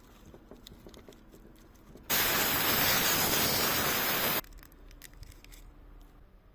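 A hissing spray, about two seconds long, that starts and stops abruptly, such as a blast of air or cleaner onto the chainsaw during maintenance. Small clicks and handling noises come before and after it.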